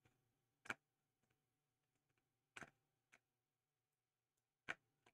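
Faint clicking at a computer: about five short sharp clicks, the three loudest roughly two seconds apart, over a faint steady hum.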